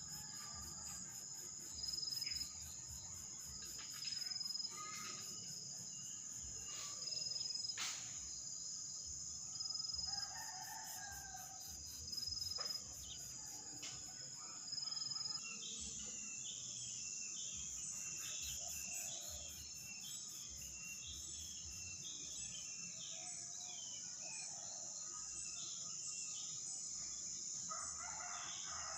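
Steady chorus of insects with a pulsing high chirr that swells about every two seconds. Over it a rooster crows a few times, and in the second half a bird gives short chirps, about two a second.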